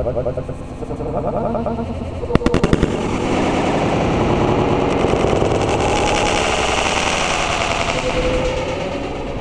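An aerial firework bursts about two and a half seconds in with a quick cluster of sharp bangs. Several seconds of dense crackling follow as its gold stars burn out. Wind rumbles on the microphone throughout.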